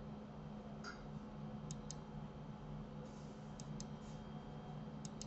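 Computer mouse clicking: three pairs of quick clicks, spaced about two seconds apart, over a faint steady electrical hum.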